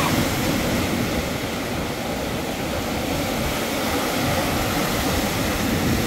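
Strong wind buffeting the microphone in a steady, fluttering rumble, over the wash of breaking surf.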